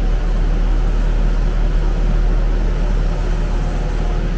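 Gondola cable-car station machinery running overhead, a steady low rumble from the turning bull wheel and drive gear.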